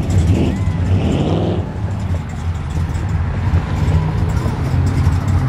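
Cars rolling slowly past in a cruise line, their engines making a steady low rumble; a Dodge Coronet 440 passes close near the end.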